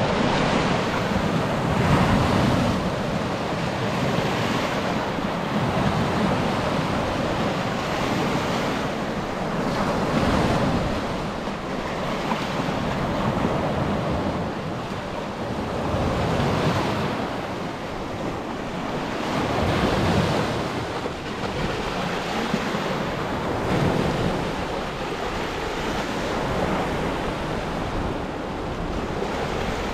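Baltic Sea surf: small waves breaking and washing up the beach, swelling and easing every few seconds.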